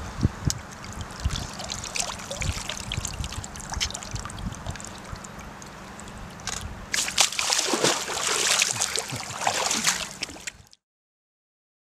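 Shallow lake water sloshing and trickling as a large mirror carp is held in the margin. From about seven seconds in comes louder splashing as the carp is released and swims off, and the sound cuts off abruptly near the end.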